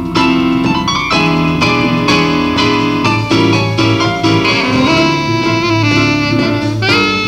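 Small jazz group playing: an electronic keyboard with a piano sound leads with struck chords and runs, and a saxophone plays held notes over it in the second half.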